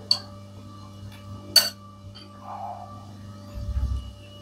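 Dishes clinking twice at the table, about a second and a half apart, over a steady low hum, with a soft low rumble near the end.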